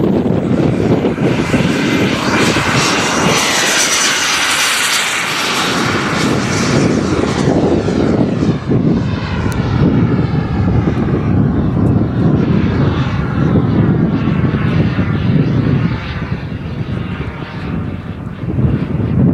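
KingTech K-45G2 kerosene model jet turbine at high power as the Mini Avanti S takes off and climbs away: a loud, steady jet roar with a high whine that falls steeply in pitch a few seconds in.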